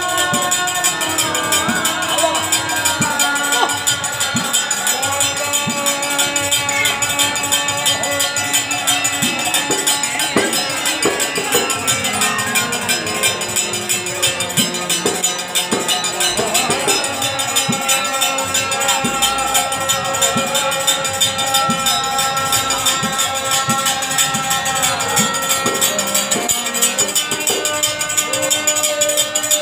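Devotional kirtan music: kartals (small brass hand cymbals) clashing in a fast, steady rhythm, with held and gliding sung notes and drum strokes beneath.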